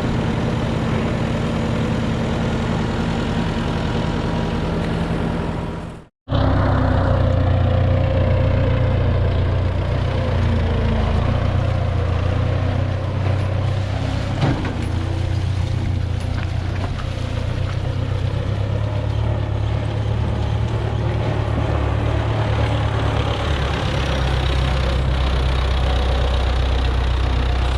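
Heavy farm machinery engines running steadily with a deep, even hum. The sound cuts out briefly about six seconds in, and a louder, different engine follows.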